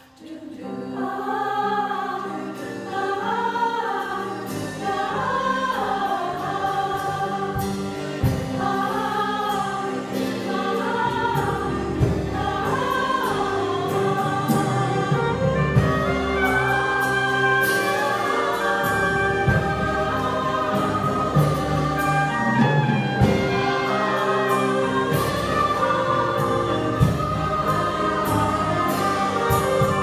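A mixed choir singing together in several voices with instrumental accompaniment, coming in right at the start and holding a full, steady level.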